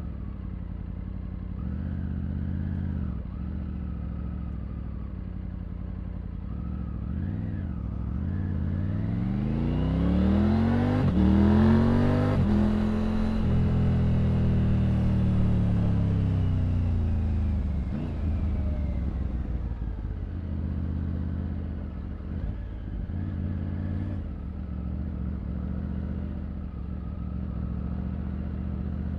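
Triumph Tiger 900's three-cylinder engine running at low revs, then revving up hard about eight seconds in, with a click near the top of the climb. The revs then fall slowly back to low-rev running.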